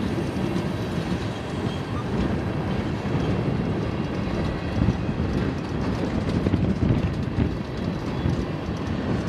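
Tank cars of a BNSF manifest freight train rolling past at close range: a steady, mostly low noise of steel wheels running on the rails.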